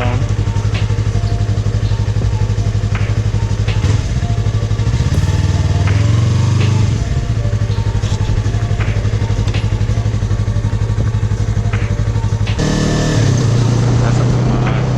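Yamaha R3 321 cc parallel-twin motorcycle engine running on the road. Its note rises and falls briefly about five seconds in, then picks up and gets louder near the end.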